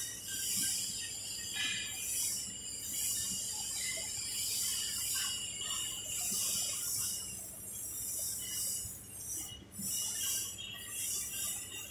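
Hand wire brush scrubbing a steel weld, scratchy strokes roughly once a second, cleaning slag and spatter off the bead.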